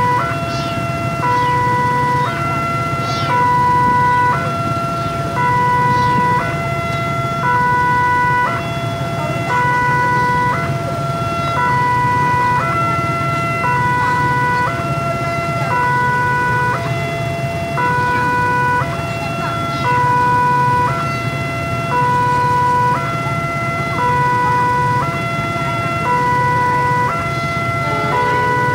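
Railway level-crossing warning alarm sounding its electronic two-tone signal, alternating evenly between a lower and a higher tone, each held for under a second, with a low rumble of idling traffic beneath.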